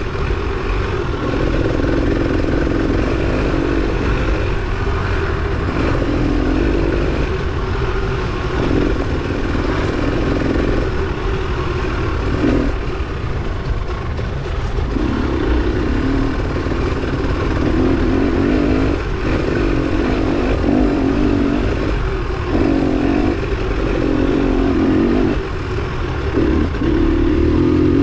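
Off-road dirt bike engine under race riding, revving up and dropping off again and again as the throttle is opened and closed every second or two.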